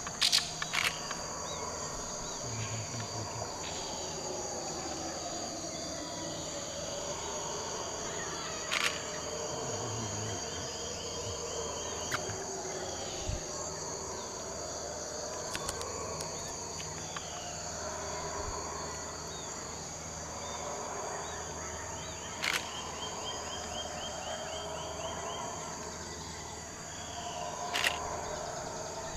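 A chorus of howler monkeys howling with long, wavering, rising-and-falling calls, over a constant high-pitched insect buzz from the rainforest. A few sharp knocks stand out at intervals.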